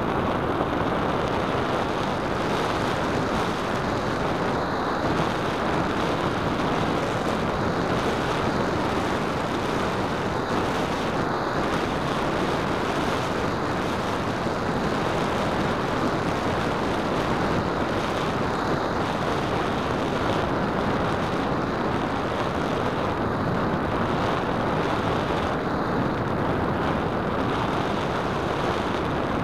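Steady rushing wind noise from the airflow over the microphone of a keychain camera mounted on a Radian RC glider in flight. No motor whine shows through.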